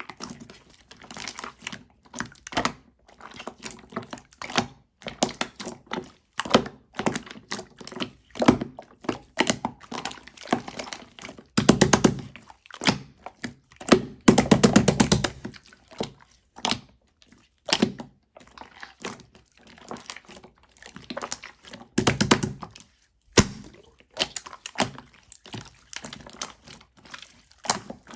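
Slime being squished, poked and pressed by hand, giving irregular clicks and pops of trapped air. Near the middle come two longer runs of rapid popping.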